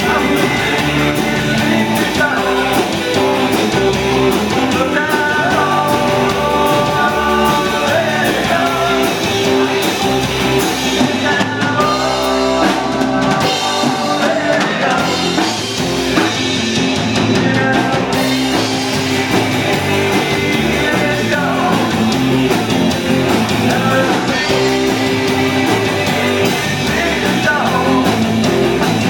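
Live rock band playing with a lead vocal, electric guitars, bass and drum kit, with steady loud music throughout and singing in parts.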